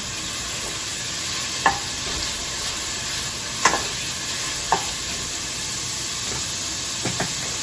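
Chopped onions sizzling in hot margarine and olive oil in a stainless steel saucepan, stirred with a wooden spoon that knocks against the pot a few times.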